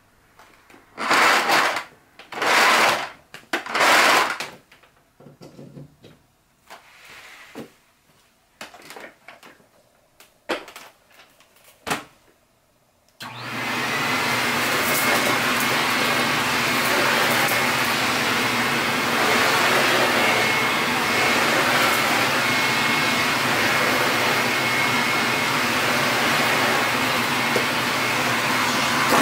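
A few short, loud noises, then the Toshiba VC-8300 canister vacuum cleaner switches on about halfway through and runs steadily with a faint high whine while its floor nozzle is worked over carpet.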